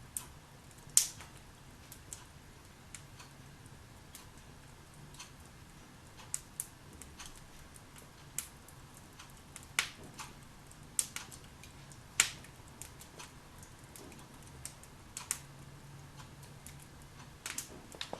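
Wood fire burning in a fireplace, crackling with irregular sharp pops a second or two apart; the loudest pops come about a second in and again near ten and twelve seconds.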